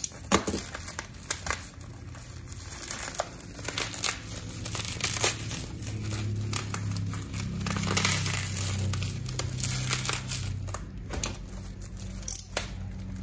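Black plastic parcel wrapping crinkling and tearing as it is pulled and cut open by hand, in quick irregular rustles and crackles.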